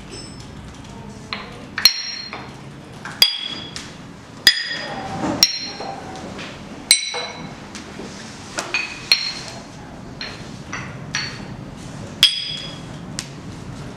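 Loose tuned floor tiles clacking against their beds and ringing out short high notes as hands and knees press and rock them: about a dozen sharp strikes at uneven intervals, each note at its own pitch.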